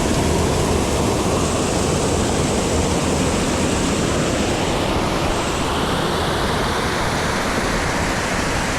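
Waterfall on a creek, falling water rushing steadily and loudly.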